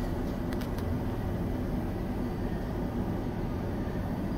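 Metro-station glass elevator car travelling in its shaft: a steady low rumble, with a few faint ticks about half a second in.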